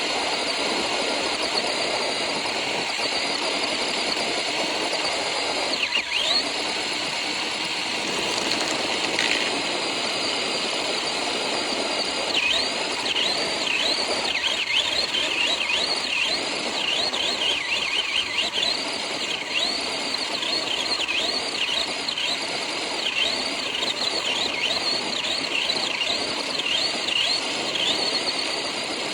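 Small RC car running, with steady wheel and drivetrain noise. Through the second half its high motor whine rises and falls over and over as the throttle is blipped while it drifts.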